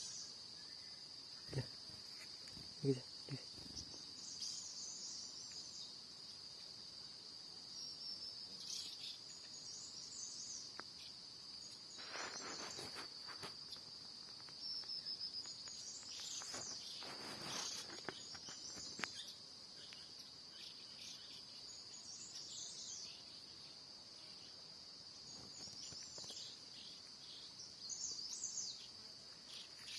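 Faint, steady high-pitched insect drone like crickets, with short high bird chirps every few seconds and a couple of brief rustles.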